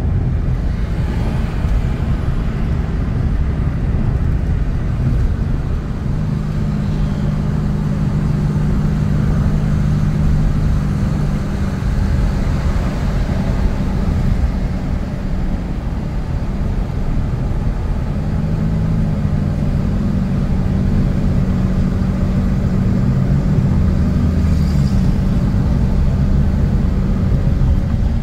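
A road vehicle under way, heard as a steady rumble of engine and road noise. An engine drone comes up about a fifth of the way in, fades around the middle and returns.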